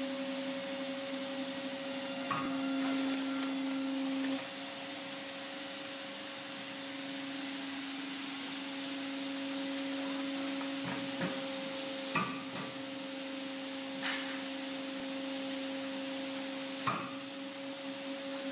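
Vertical stave-wood (merrain) splitter running, its motor and hydraulic pump giving a steady two-note hum that gets louder for a couple of seconds near the start as the ram works. A few sharp wooden knocks and cracks come from the blocks being split and the split pieces being handled.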